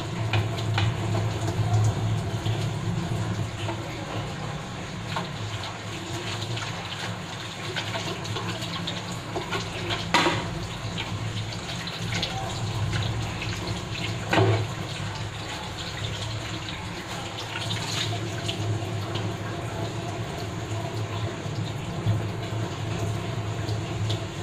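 Kitchen tap running into a sink while dishes are washed by hand, with a steady low hum underneath and a few sharp clinks of dishes knocking together, three of them louder.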